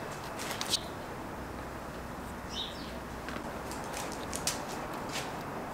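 Duct tape and a paper template being handled and pressed onto a car fender: a few short rustles and taps over a steady background hiss, with one brief bird chirp about two and a half seconds in.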